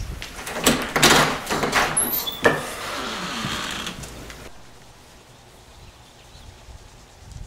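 A door being opened: several knocks and clunks of the handle and latch with a short falling squeak, then a rush of noise as it swings open that cuts off suddenly about four and a half seconds in, leaving a quieter background.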